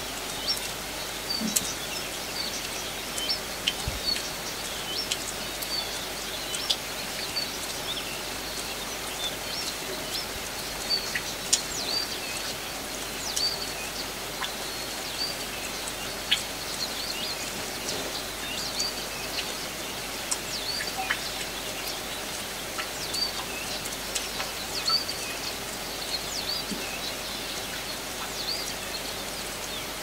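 Steady hiss of light summer rain with small birds chirping throughout in short, high notes, and scattered sharp drips.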